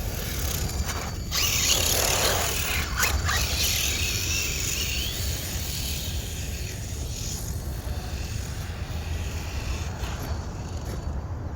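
Steady wind rumble on the microphone. From about one to five seconds in, a loud hiss with a wavering whine rises over it, from a 1/8-scale Arrma Kraton RC truck's electric motor running across the sand.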